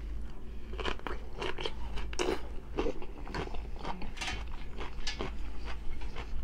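Person biting into and chewing a raw cucumber: a run of crisp, irregular crunches, one after another.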